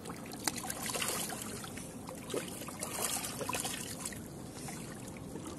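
Shallow seawater lapping and splashing against the rocky shore edge, an uneven wash of small trickles and splashes.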